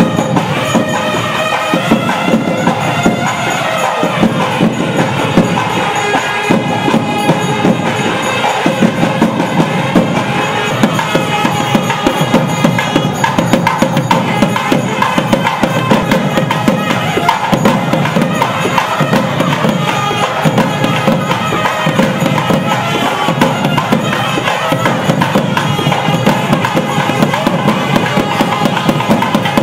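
Periya melam temple music: several nadaswaram double-reed pipes playing a winding melody together over continuous, quick thavil drumming.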